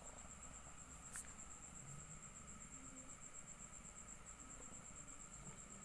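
Faint, steady high-pitched insect trill, with a single short click about a second in.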